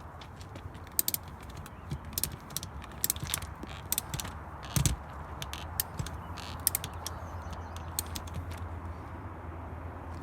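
Ratchet strap being cranked tight around a tire, its ratchet handle and pawl clicking irregularly a few times a second, with a heavier knock about five seconds in; the strap is squeezing the tread so the tire bead spreads out to seal against the rim. The clicks thin out near the end over a steady low rumble.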